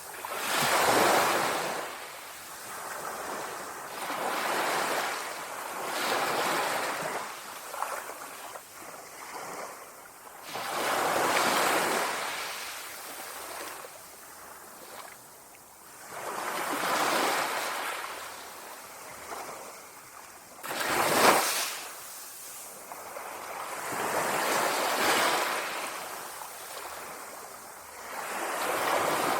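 Small sea waves lapping and washing onto the shore, swelling and fading every few seconds. One sharper, louder wash comes about two-thirds of the way through.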